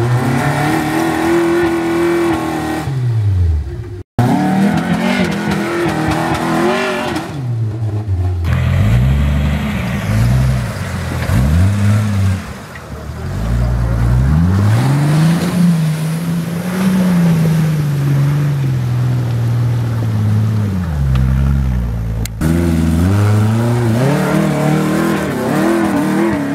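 Off-road 4x4 engines revving hard and dropping back under load, the pitch rising and falling again and again as they climb and crawl through the trial sections. The sound switches abruptly several times as one run cuts to the next.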